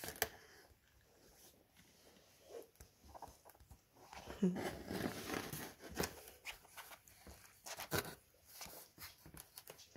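Soft rustling and scraping of 25-day-old puppies being handled and scrambling about on their bedding, with scattered light clicks and a louder rustly stretch around the middle.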